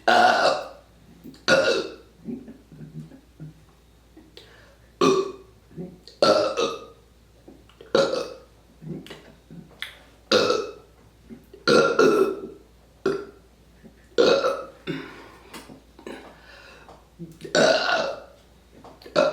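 A person burping on command: a run of about ten loud, short burps one to three seconds apart, with smaller ones in between.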